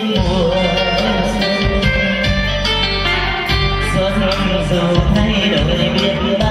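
A man sings a Vietnamese song into a microphone over an amplified backing track with a steady bass line.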